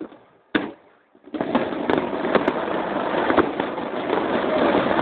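Aerial fireworks shells bursting: one sharp bang about half a second in, then, from about a second and a half, a dense, continuous crackle of many bursts at once, with sharper pops scattered through it.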